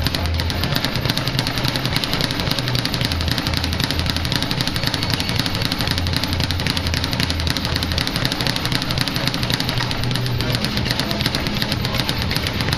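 Speed bag being punched continuously, the leather bag drumming against its wooden rebound board in a rapid, steady, machine-gun-like rattle.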